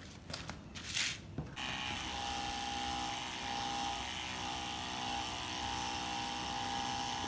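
A few knocks as a bucket is set down, then about a second and a half in a small electric spray pump switches on and runs steadily with an even whine, drawing liquid from the bucket through its hose.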